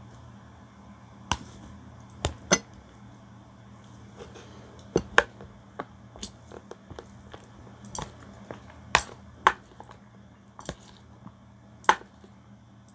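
Plastic chopsticks clicking and tapping against a bowl and a plastic container while picking up rice noodles: a dozen or so irregular sharp clicks, a few of them loud.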